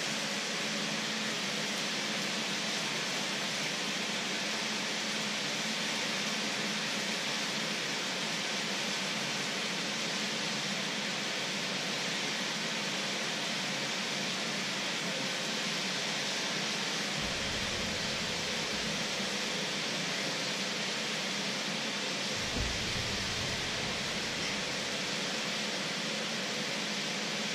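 Steady hissing rush of pots of water at a hard boil on an electric stove, giving off heavy steam. A low rumble joins in from about two-thirds of the way through.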